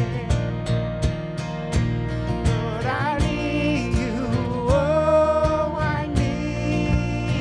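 Worship song played by a band with guitar and a steady drum beat, and a voice singing long held notes.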